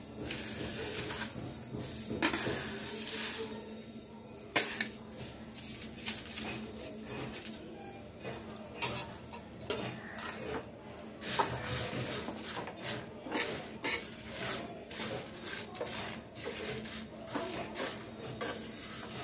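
Whole spices (coriander and cumin seeds, fennel, dried red chillies, cinnamon) rattling as they are tipped into a dry pan, then stirred and scraped with a spatula while roasting: a dry rustle of seeds with many short scrapes and clicks of the spatula against the pan.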